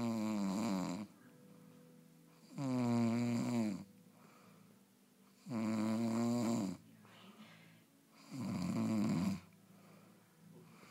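A person snoring loudly, four long snores about every three seconds, each lasting about a second and carrying a rough, wavering pitch.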